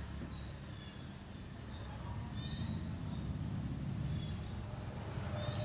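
A bird calling over and over: a short, high chirp repeating about every one and a half seconds, over a steady low background rumble.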